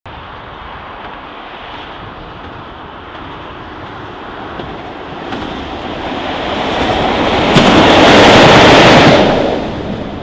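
Class 47 diesel-electric locomotive running light engine with its Sulzer twelve-cylinder engine, growing steadily louder as it approaches and passes close, loudest about eight to nine seconds in. It starts to fade and then cuts off abruptly near the end.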